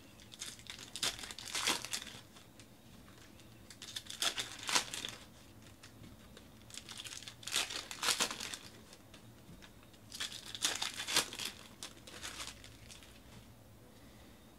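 Panini NBA Hoops basketball card packs being torn open, their plastic wrappers crinkling and tearing in four bursts a few seconds apart.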